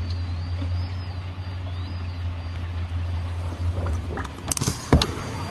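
A vehicle engine running with a steady low drone. A few sharp knocks come near the end.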